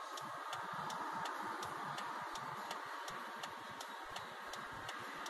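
Car's indicator relay clicking at a steady rate, about two and a half ticks a second, over a steady hiss inside the car.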